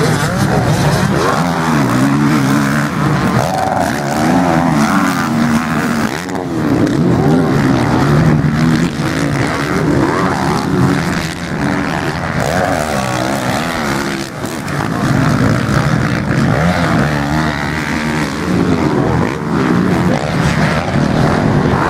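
Motocross bike engines racing on a dirt track, revving up and falling back again and again as the riders accelerate and shift.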